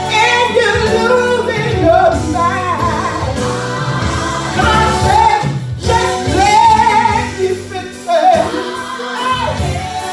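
Gospel worship music: a singer over instrumental accompaniment, with a choir.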